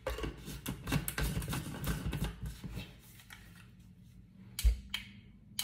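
Plastic clicking and rattling as the lid is screwed onto a small portable USB blender bottle with fruit inside, then two sharp knocks as the bottle is handled near the end.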